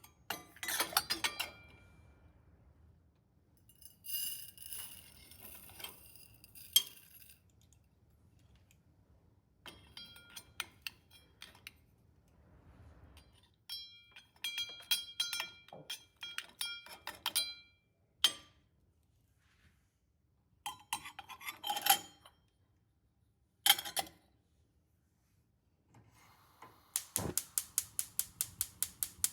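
Metal and glass kitchenware clinking and clattering in scattered bursts with short ringing tones. Near the end comes a rapid, even ticking, about four ticks a second.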